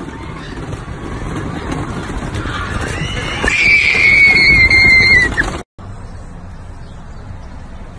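Rollercoaster ride: a rushing rumble that builds, then a long high-pitched squeal about three and a half seconds in that holds for about two seconds and falls slightly at the end. The sound then cuts off abruptly to a quieter steady background.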